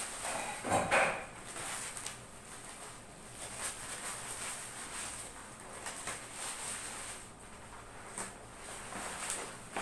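Scissors snipping through a plastic courier bag wrapped around a cardboard box, with the plastic rustling and the box being handled. A louder rustle comes about a second in, with scattered small clicks and scrapes after it.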